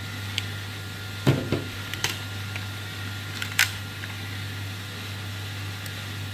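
Handling noises from a plastic RC toy excavator being picked up and turned over: a few sharp plastic clicks and one dull knock about a second in, over a steady low hum.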